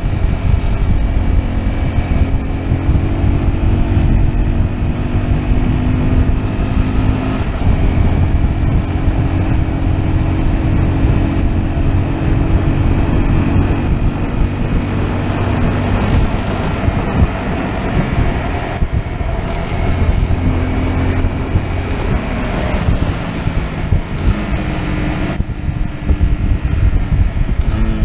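A small sport motorcycle's engine running while riding, its pitch rising and dropping back several times with the throttle. Heavy wind rumble on the microphone runs under it.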